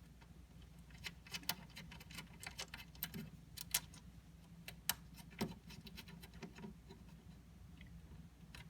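Light, irregular clicks and ticks of small metal hardware being handled, spread over several seconds.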